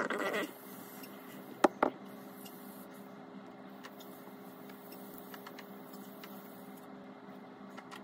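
Hands handling small electronics and wires on a desk: a brief rustle at the start, then two sharp clicks in quick succession a little under two seconds in. After that a steady low hum runs under a few faint small ticks.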